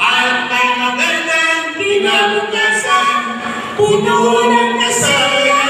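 A group of voices singing a song together into microphones, holding long notes.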